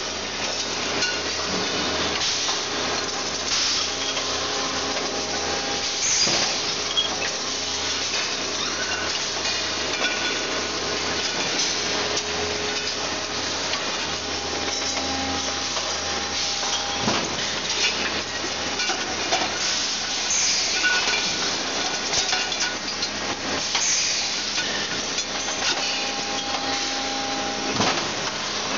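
Running machinery of an LPG gas-cylinder production line: a steady industrial din with occasional metal knocks and clanks, clear ones at about six, seventeen and twenty-eight seconds in.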